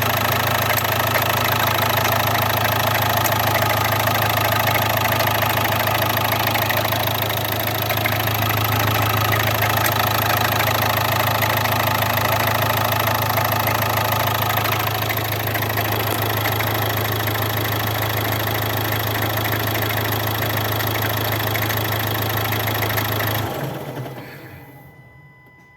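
Renault K9K 1.5 dCi diesel engine idling with an extraneous knock, grinding and cricket-like chirping noise that marks a fault. The engine is switched off near the end and the sound dies away.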